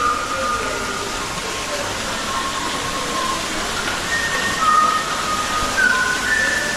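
Steady rush of falling water, with faint, short, steady high tones now and then over it.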